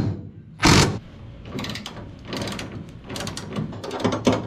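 Hand ratchet clicking in short strokes, tightening the bolts that hold a jig to a car body, with one louder sharp noise about a second in.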